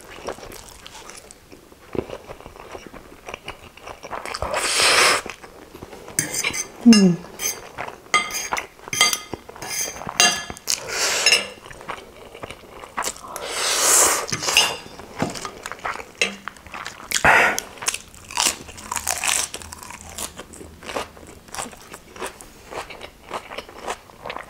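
Close-miked eating of spicy instant noodles: noodles slurped in several one-second swells, with wet chewing and crunching clicks between them.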